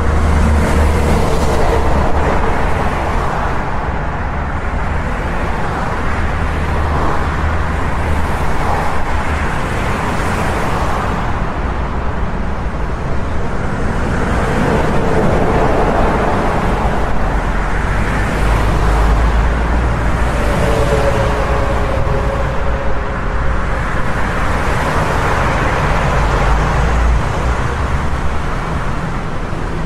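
Busy highway traffic: a continuous low rumble of engines and tyres, swelling and easing every few seconds as vehicles pass.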